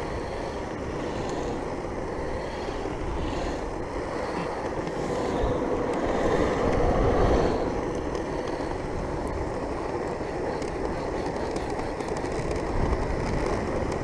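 Oxelo XT waveboard's two caster wheels rolling on asphalt: a steady rumble, swelling louder about six to seven seconds in, with wind on the microphone.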